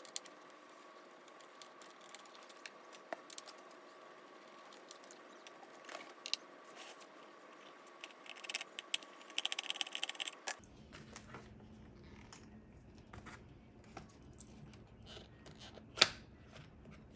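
Small clicks, scrapes and a quick rattling of a Torx driver and plastic steering-wheel trim as the control-button screws are taken out. There is a faint steady hum for the first ten seconds and one sharp click near the end.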